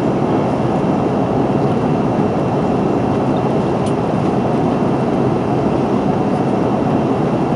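Steady cabin roar of an Airbus A330-300 in flight, heard from a window seat: engine and airflow noise with a faint high steady tone over it.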